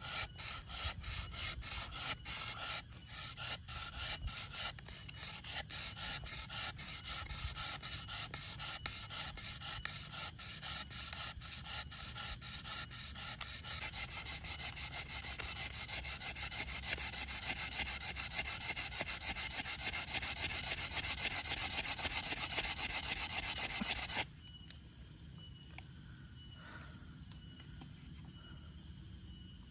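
Bamboo fire saw: a bamboo blade sawn rapidly back and forth across a notched bamboo tube, a dry rasping rub that grows louder and denser, working up friction heat for an ember. The sawing stops abruptly about 24 seconds in.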